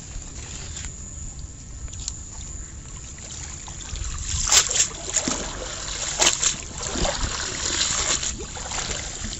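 A cast net being dunked and swished in shallow muddy water to rinse it, splashing and sloshing in repeated strokes from about four seconds in. Before that, quiet trickling of water running off the net.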